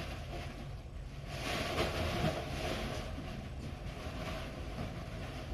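Rustling of nylon fabric, loudest from about one to three seconds in, over a steady low background hum.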